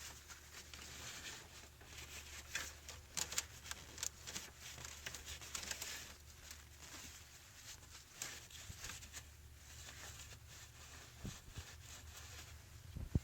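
Paper towel rustling and rubbing as it wipes around the solenoid valve's O-ring seat, with scattered light clicks and scrapes of handling.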